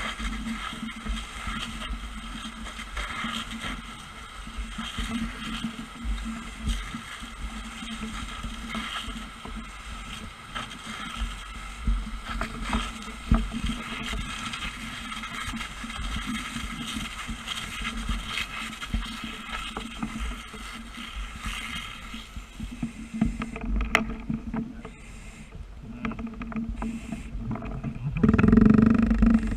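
Fire truck engine running steadily, with a low, uneven rumble on the microphone. It gets louder about two seconds before the end.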